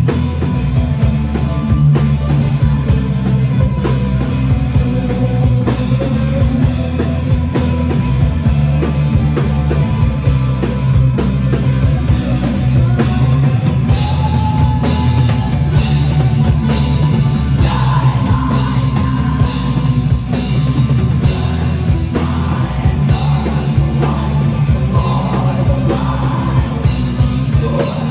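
Rock band playing loudly with a full drum kit and heavy bass, with singing at times.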